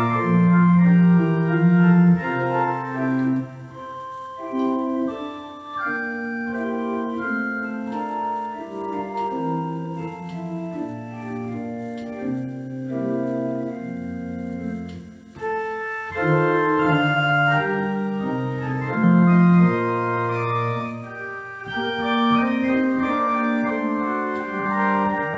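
Church organ played solo: held chords over a moving bass line, with a brief pause about fifteen seconds in.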